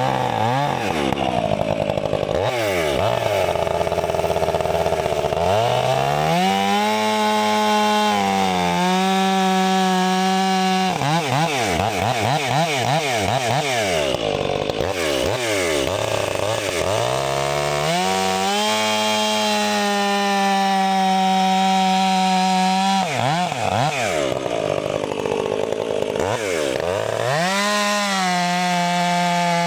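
Stihl 500i two-stroke chainsaw at full throttle cutting through pine logs: the engine pitch sinks and wanders while the chain is loaded in the wood, then climbs to a steady high whine when it runs free, about three times over.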